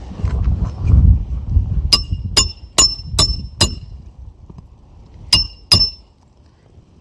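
A hammer strikes a metal shingle-repair nail-driving tool (a Dragon Tooth) to drive a roofing nail through the decking. There are five quick metallic blows with a short ringing clink, then two more a little later, after a low rumble in the first two seconds.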